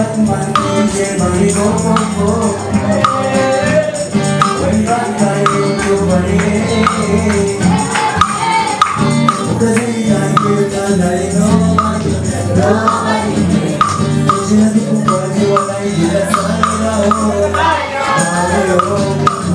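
A song: a man singing into a microphone over music with a steady beat.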